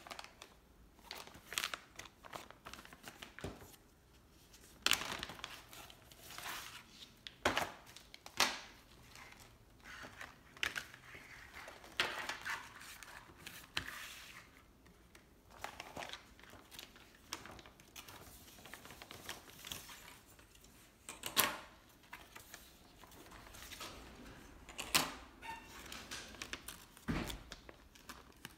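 Clear plastic bag crinkling and rustling as hands unpack laminated card discs, with irregular sharp clicks and taps of the cards being handled and set down on a table.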